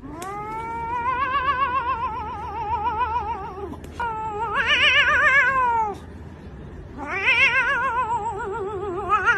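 Tabby cat yowling: three long calls with a fast-wavering pitch, the second starting about four seconds in and the third about seven seconds in.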